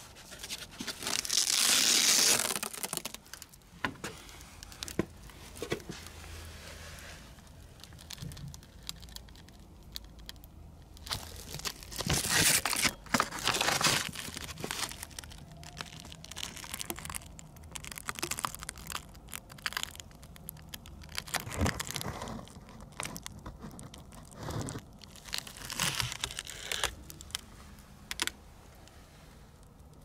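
Fabric sound-insulation jacket on an air-conditioner compressor being pulled open and wrapped shut by hand: irregular bursts of rustling and ripping, loudest about a second in and again around twelve to fourteen seconds in.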